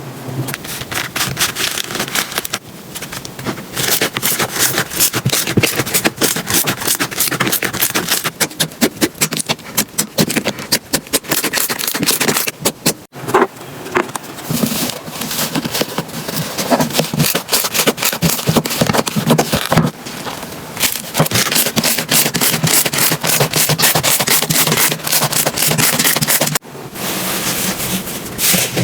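Slime squeezed and worked by hand, making a dense run of crackling, popping clicks that breaks off briefly several times.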